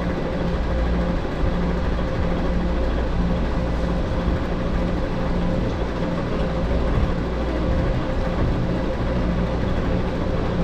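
Steady hum of office air conditioning: an even rushing noise with a low rumble and a faint steady tone, unchanging throughout.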